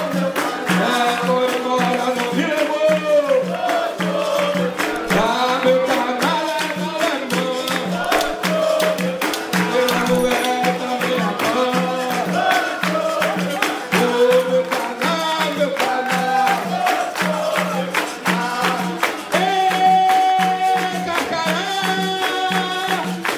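Capoeira roda music: berimbaus and an atabaque drum playing a steady rhythm under group singing, with hand-clapping from the circle.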